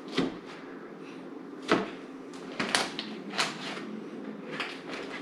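Spatula cutting through a baked French toast casserole's crisp top: a series of about six sharp crunches and scrapes, the loudest a little under two seconds in.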